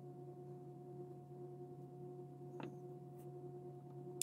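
Faint steady hum of a few even tones, with a small tick about two and a half seconds in and a sharp click right at the end as small plastic model parts are handled.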